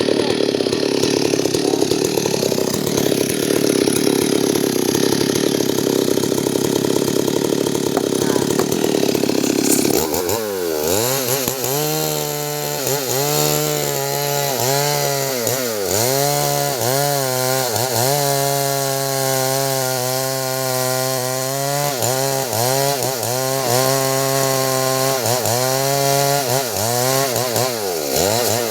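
Two-stroke chainsaw running at high revs and cutting wood. About ten seconds in, its sound changes from a dense buzz to a clearer engine note that repeatedly dips and recovers in pitch as the chain bites.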